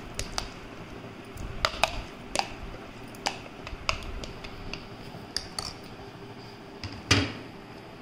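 Steel spoon clinking and scraping against bowls while chopped fruit is pushed out of a plastic bowl into custard: a dozen or so short irregular taps, the loudest about seven seconds in.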